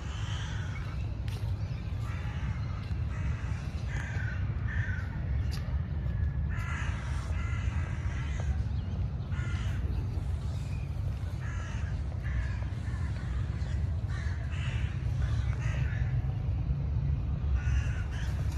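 Short animal calls repeating irregularly, one every second or two, over a steady low rumble.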